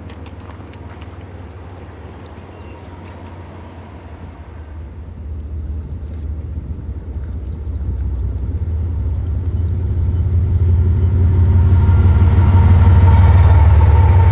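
Diesel-hauled freight train approaching along the track: the deep rumble of the locomotive engines and the rolling wheels grows steadily louder from about five seconds in, at its loudest as the locomotives pass close near the end.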